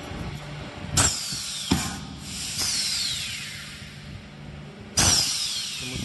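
Automatic PVA detergent pod packing machine running with a low steady hum. A sudden loud burst of noise comes about a second in and again near the end, each followed by a high whine that falls in pitch, with a sharp click in between.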